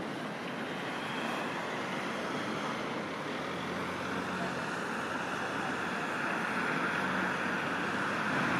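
Steady street traffic noise, a rushing haze that slowly swells louder over the last few seconds.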